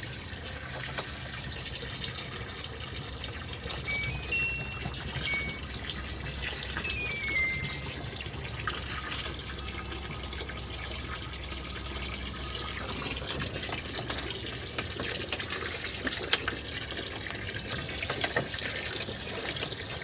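A stream of water pouring steadily and splashing into the drum and centre drain of an LG top-loading washing machine during cleaning, with a low steady hum underneath. A few short high tones sound in the first half.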